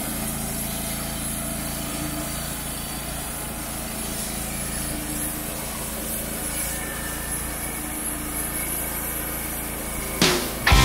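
Wood-Mizer LT35HD band sawmill running steadily under load as its band blade cuts through a red oak cant.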